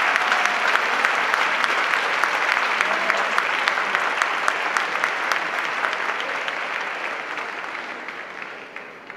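Audience applauding, with dense clapping that holds steady and then dies away over the last couple of seconds.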